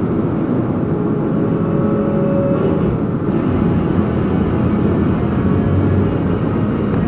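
Rocket stove burning with a steady low roar.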